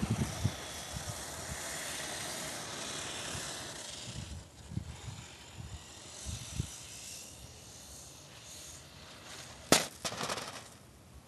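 Wind rushing over the microphone of a small camera hung from a kite string, with low buffeting knocks, fading away. About ten seconds in, a sharp loud crack as the camera hits the ground when the kite comes down, followed by a few smaller knocks.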